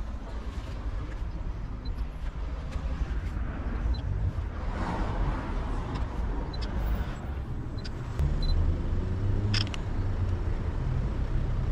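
Street traffic over a steady low rumble, with a vehicle passing about five seconds in.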